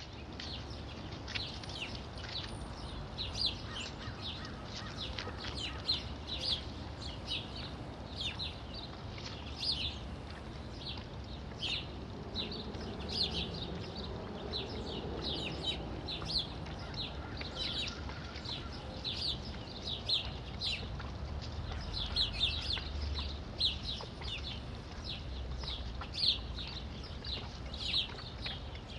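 Continuous high-pitched chirping from small outdoor animals, many short chirps a second in an irregular chorus. A low steady hum from the outdoor security camera's microphone lies beneath it.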